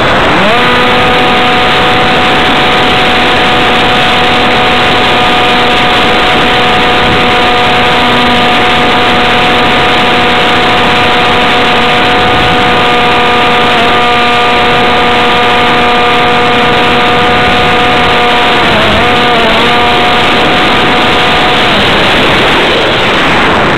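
Electric motor and propeller of a Multiplex EasyStar RC plane in flight: a steady whine over heavy wind rush on the microphone. The pitch climbs into place just after the start as the throttle comes up, wavers briefly near the end, and the whine stops about two seconds before the end, leaving the wind.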